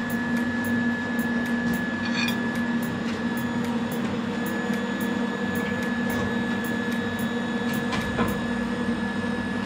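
Steady hum of running workshop machinery, with a constant high whine over it and a couple of faint knocks.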